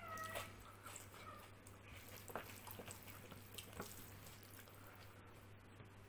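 Faint wet squishing and small clicks of fingers mixing rice into chickpea curry on a plate. A short cat meow sounds at the very start.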